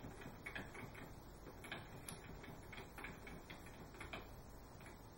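Faint, irregular light clicks and ticks over low background noise.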